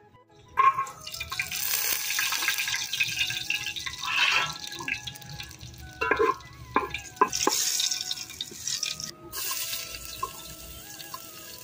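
Liquid poured into a hot aluminium cooking pot and stirred with a steel ladle: splashing and hissing with scattered clinks, dying down after about nine seconds.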